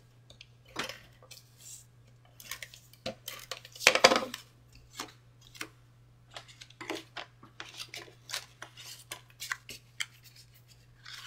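Cardstock and paper being handled on a craft mat: a string of light taps, slides and rustles, with a longer, louder rustle about four seconds in, over a faint steady hum.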